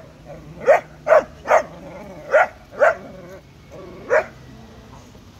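A dog barking: six sharp barks in about three and a half seconds, the last one after a short pause.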